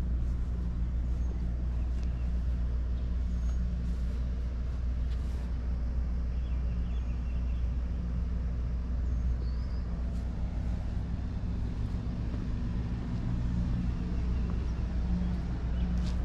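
Steady low engine hum of a motor vehicle idling, unchanging throughout.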